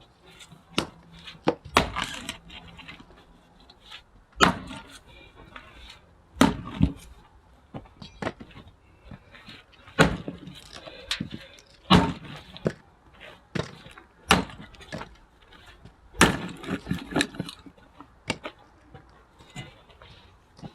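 Axe splitting firewood logs: about seven sharp cracking strikes, roughly every two seconds, with lighter knocks of split pieces between them.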